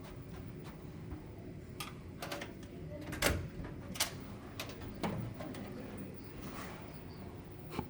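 A door being handled: a series of sharp clicks and knocks, the loudest about three seconds in, over a steady low hum.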